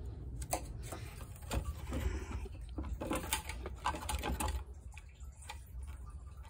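Irregular clicks and light knocks of an old plastic fuel pump module being handled and tilted over the fuel tank opening to drain fuel out of it, with a steady low hum underneath. The clicks thin out after about four and a half seconds.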